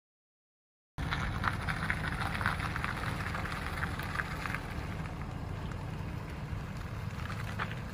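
Pickup truck driving away on a paved road: steady road and wind noise with a low rumble and a crackly texture, starting about a second in.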